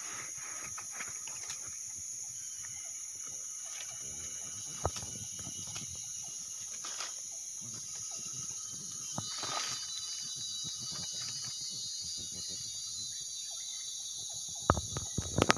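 Steady high-pitched drone of insects in tropical forest, with scattered light clicks and crackles and a cluster of sharp clicks near the end.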